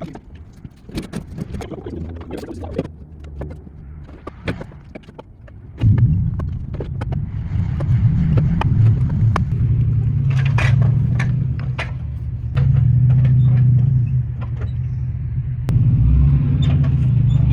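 Small engine of a zero-turn mower towing a firewood trailer, coming in loud and steady about six seconds in. Before and over it, split firewood pieces clunk against each other.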